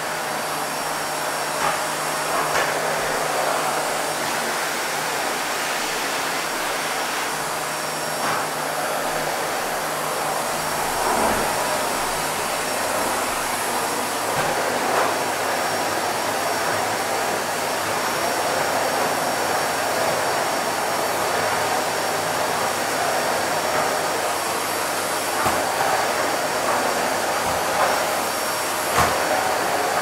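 Vacuum cleaner running steadily, its even rushing whoosh of motor and airflow used as white noise, with a faint steady hum underneath and a few small knocks.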